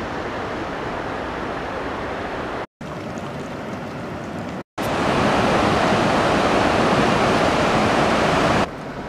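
Steady rush of flowing water across three short clips joined by abrupt cuts; the last clip, starting about five seconds in, is the loudest.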